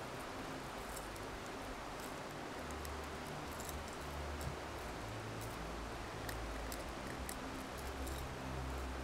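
Small light clicks and rustles of a crankbait's treble hooks and a small fish being handled while the hook is worked out of its mouth, over uneven low rumbling on the microphone.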